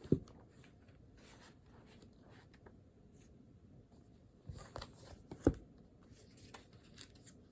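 Quiet handling sounds at a desk: faint scratching like a pen on paper, with a few light knocks, one just after the start and two more about five seconds in.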